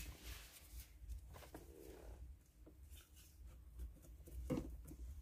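Faint scattered clicks, scrapes and rustles of hard plastic dashboard pieces being handled and fitted into a stripped Chevrolet Niva dashboard, with a sharper knock about four and a half seconds in.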